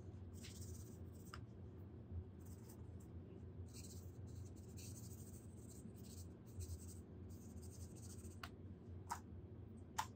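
Bristle paintbrush scrubbing and dabbing paint on a paper-plate palette and a canvas: faint scratchy strokes one after another, with a few light taps near the end.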